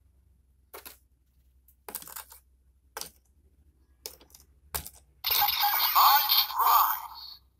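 Sharp plastic clicks as a DX Zero-One Driver toy belt is handled with a Zetsumerise Key, about five in all. Then, a little past five seconds in, the belt's speaker plays a loud electronic sound effect for about two seconds while its red light comes on.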